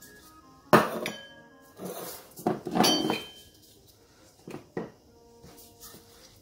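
A small stainless-steel bowl knocked against the rim of a large stainless-steel mixing bowl to empty it: metallic clanks that ring on briefly, the two loudest about a second in and near three seconds in. A few softer knocks follow near the end.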